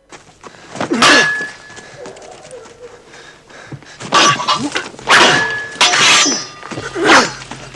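A series of about five loud, sharp clashes on a film soundtrack, some leaving a brief ringing tone.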